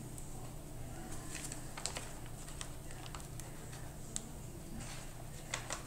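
Faint, scattered clicks and light scraping of a knife trimming fat from a rack of baby back ribs on butcher paper, over a steady low hum.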